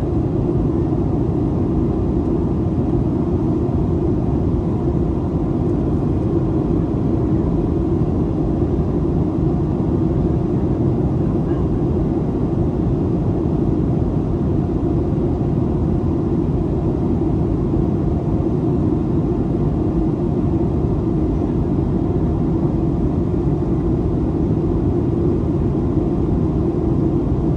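Steady low cabin rumble of a Boeing 737-800 in flight on approach, heard from a window seat beside the wing: airflow over the fuselage and the hum of its CFM56-7B engines, even throughout with no changes.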